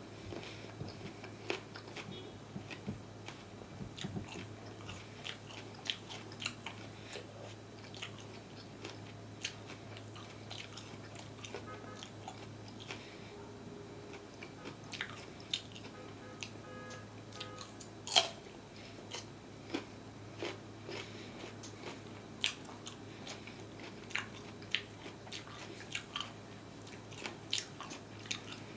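Close-miked eating of crunchy food: irregular crisp bites and crunches with chewing between them, one especially loud crunch about 18 seconds in.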